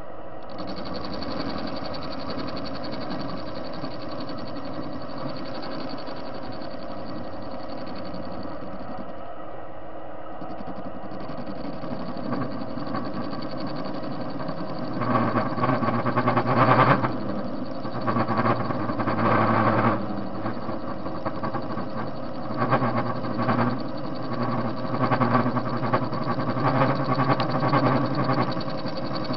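TV-16 lathe running steadily with a constant gear whine while it turns a metal washer. About halfway through, the cutting tool bites into the face and a louder, uneven cutting noise comes and goes over the hum.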